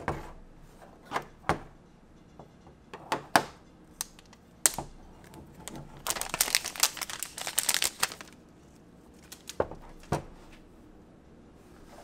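An iPhone Xs box and packaging handled on a tabletop: scattered taps and knocks, then about two seconds of dense crinkling packaging about six seconds in, and two more knocks a little later.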